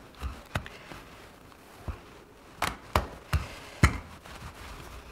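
Wooden rolling pin knocking and tapping against the countertop while pizza dough is rolled out: several short, sharp knocks, the loudest about four seconds in.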